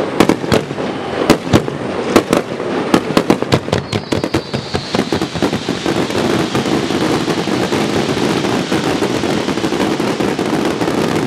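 Fireworks display: a rapid run of sharp bangs from shells bursting for about the first four seconds, then a steady rushing hiss from white fountain-like jets, with a brief falling whistle just after the bangs stop.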